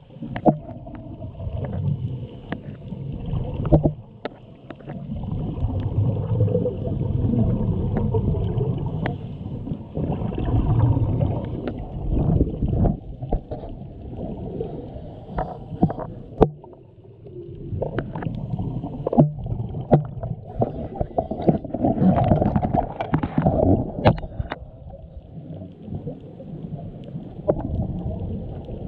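Muffled underwater rumble and gurgle of a scuba diver's exhaled regulator bubbles, swelling for several seconds at a time and easing off between breaths, with scattered sharp clicks and knocks.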